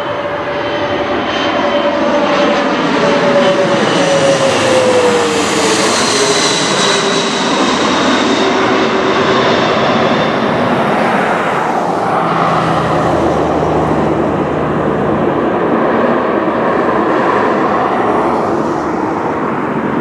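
Airplane engine noise as an aircraft passes close by, its pitch dropping as it goes past a few seconds in, then a steady lower engine noise.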